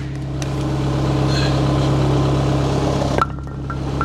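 Forklift engine idling steadily, with a sharp knock about three seconds in and another near the end.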